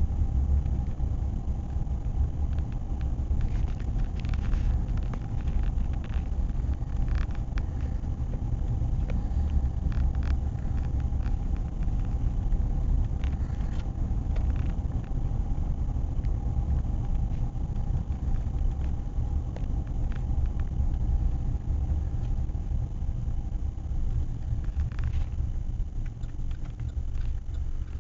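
Steady low rumble of a vehicle driving along a road, heard from inside the cabin: tyre and road noise with the engine underneath, and a few faint scattered clicks.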